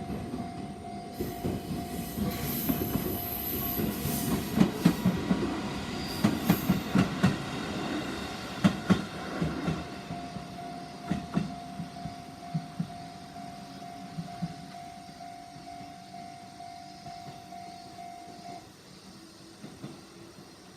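A JR 211 series two-car electric train passing over a level crossing, its wheels clacking over the rail joints for about fifteen seconds, then fading. The level-crossing warning signal sounds as a steady tone under the train and stops a few seconds after the train has gone.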